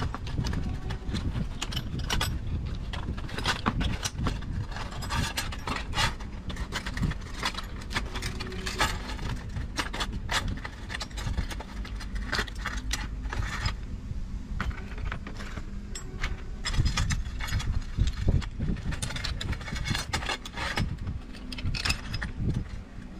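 A screwdriver scraping and prying at the rusty iron parts of an antique scale, with irregular metal clicks and clinks against the metal pan and small chain links jangling, over a low steady rumble.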